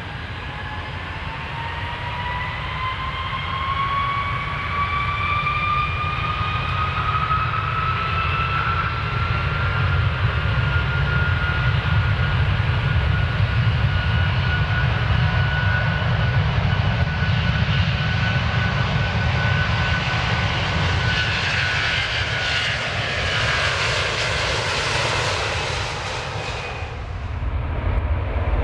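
Airplane engines spooling up for takeoff: a whine rises in pitch over about ten seconds and then holds steady over a low rumble. A loud rushing hiss builds as the plane accelerates and cuts off suddenly near the end.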